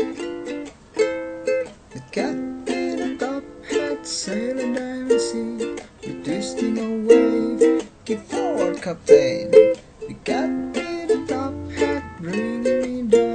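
Instrumental passage of an acoustic song: rhythmically plucked and strummed strings, with melody notes that slide up and down in pitch.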